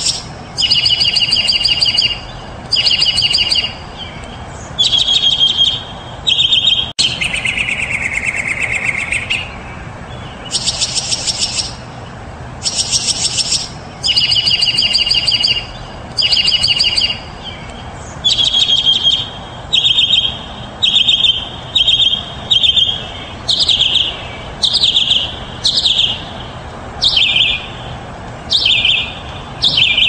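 Mockingbird singing: loud phrases of rapid repeated notes, each phrase type given two or three times before the song moves on. In the second half the phrases grow shorter, about one a second, each dropping in pitch.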